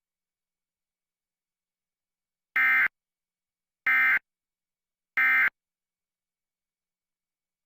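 Emergency Alert System end-of-message data bursts: three short, identical warbling digital squawks about a second apart, which close the alert.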